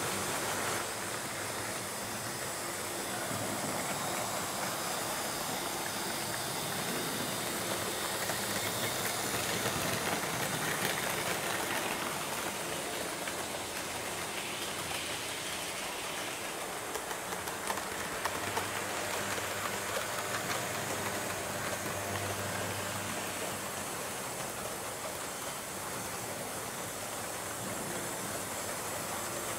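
Model trains running on a model railway layout: a steady whirring, rattling noise of the small motors and wheels on the track, with a few light clicks about 18 seconds in.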